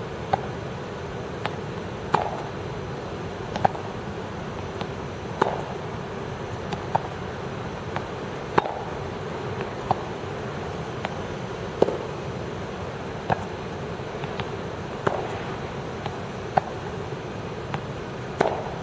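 Tennis balls being struck by racquets in a steady drill, a sharp hit about every second and a half, some followed by a ball bounce, over a steady background hum.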